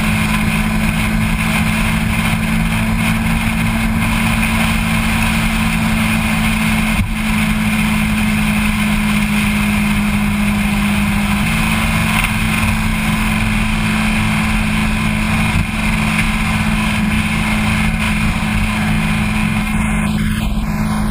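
Kawasaki ZX-6R Ninja's inline-four engine running steadily at highway cruising speed, with heavy wind rush over the bike-mounted microphone. The engine's pitch holds level, dropping slightly once about eleven seconds in.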